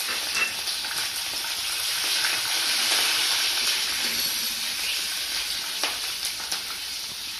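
Green chillies sizzling in hot oil with tempering spices in a kadai: a steady frying hiss that eases slightly toward the end. A silicone spatula stirs them, with a couple of light knocks in the second half.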